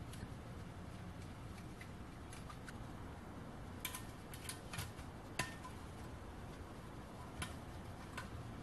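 Scattered light clicks and ticks of small brass fittings being handled and fitted onto a model steam engine's boiler, busiest about four to five and a half seconds in, over a low steady hum.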